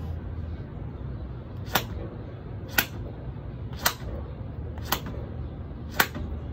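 Five sharp hand claps, about one a second, made mid-air during clap push-ups, over a steady low background rumble.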